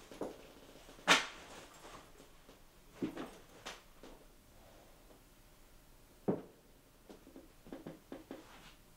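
A few scattered knocks and thuds of someone moving about a small room and handling things, the sharpest about a second in, with others around three and six seconds in.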